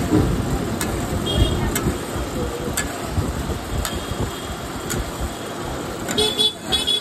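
A metal spatula scraping and tapping against a large flat iron pan about once a second as a big batch of curry is stirred over the flame, over a steady low rumble. Near the end comes a brief high-pitched chirping sound.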